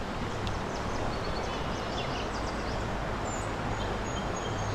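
Steady rush of a flowing creek, with faint bird chirps here and there.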